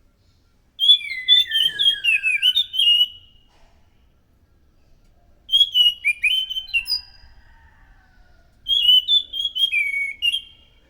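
Anis macan thrush singing: three short phrases of quick, clear whistled notes, each lasting about two seconds with a pause between. The first phrase slides downward in pitch.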